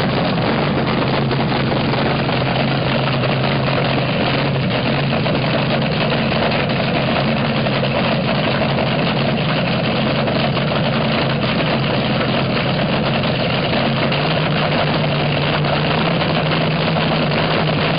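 Vintage front-engine dragster's V8 idling on nitromethane through open zoomie headers, loud and steady; the idle picks up slightly late on.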